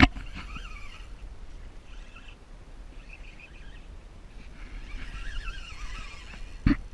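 Spinning reel being cranked to reel in a hooked fish, its gears whirring in a wavering pitch that rises and falls with the speed of the handle. A sharp knock right at the start and another near the end.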